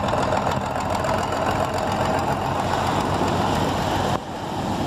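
A fishing boat's diesel engine runs steadily, chugging under a wash of sea noise. The sound dips briefly near the end.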